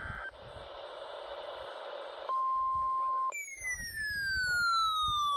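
Weather radio alert: a burst of data tone cuts off, then radio hiss, then a steady warning alarm tone about two seconds in. After about a second that tone gives way to a loud siren-like alarm whose pitch falls steadily over about three seconds, the sound of a receiver being set off by the alarm tone.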